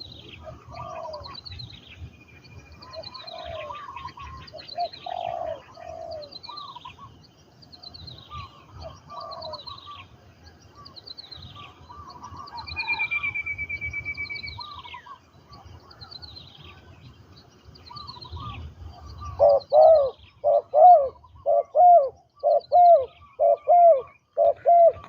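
Spotted doves cooing, with a loud run of about ten quick coos in the last six seconds. Another bird's high, falling chirps repeat about once a second throughout, and a clear held whistle sounds briefly about halfway through.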